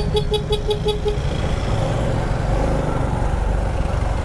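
A vehicle horn tapped in a quick run of about seven short beeps during the first second, over the steady low rumble of engines in slow traffic.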